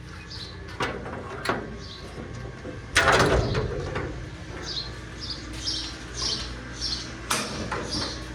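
Metal condenser access doors on an FMC M10000 ground air-conditioning cart being unlatched and swung open: a few latch clicks, then a loud metallic clank about three seconds in, followed by a string of short high squeaks.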